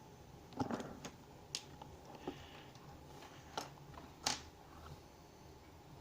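Small sharp metal clicks and taps from a dimple-lock cylinder being taken apart by hand: about six irregular clicks, the loudest about half a second in and about four seconds in.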